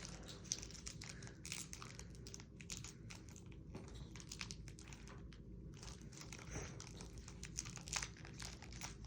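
Faint crinkling and crackling of a foil Pokémon card booster pack wrapper being handled and torn open, in irregular small crackles.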